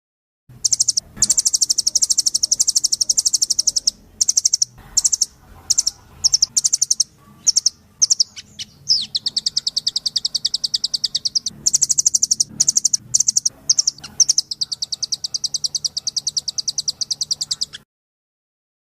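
Recorded songbird song from a bird-training masteran track: long runs of rapid, high trilling chirps broken by short pauses.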